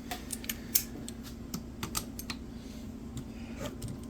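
Scattered light metallic clicks and taps, irregular, from hand tools working on a seized McCulloch 5-10E chainsaw engine.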